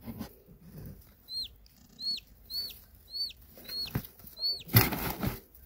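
Domestic chicken chick peeping: six short, high peeps about half a second apart, each rising and then dropping in pitch. A brief rustling noise comes near the end.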